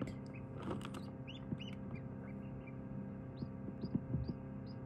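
Newly hatched ducklings peeping, short high peeps that fall into a steady run of about two a second in the second half, over the steady hum of the incubator. A few soft knocks come near the end.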